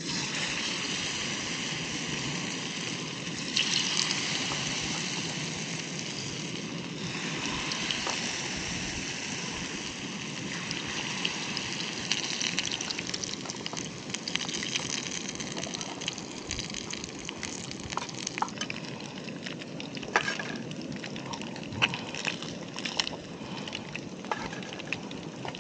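Batter-coated fish sizzling as it fries in hot oil, a steady crackling hiss. A few sharp clicks come near the end.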